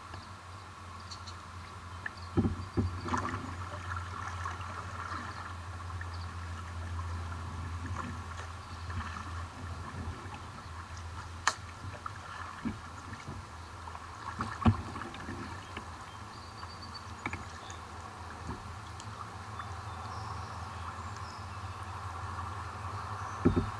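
Kayak paddling: the paddle blades dip and splash, and water drips steadily, with a few sharp knocks scattered through.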